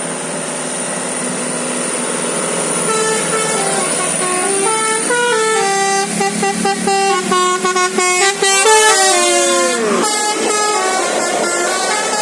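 Indonesian bus 'telolet basuri' multi-tone musical horn playing a quick melody of stepped notes, starting about three seconds in, with one note that slides down in pitch near the end.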